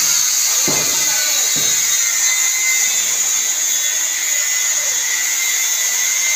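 Angle grinder with an abrasive cut-off disc cutting through steel rebar: a steady, high-pitched whine over a grinding hiss.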